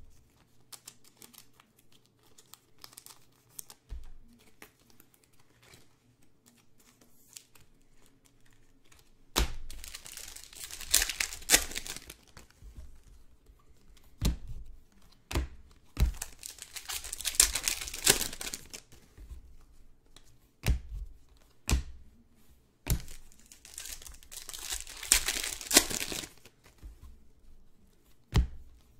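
Wrappers of 2019-20 Prizm basketball trading-card packs being torn open and crinkled, in three long bursts, with sharp taps and clicks of cards being handled between them. The first third is quieter, with only light clicks.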